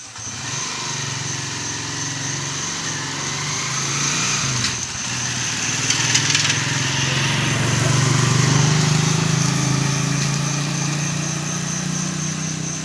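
A small engine running steadily, growing louder to about eight seconds in and then easing off, as a motor vehicle passes by. Crickets trill in the background.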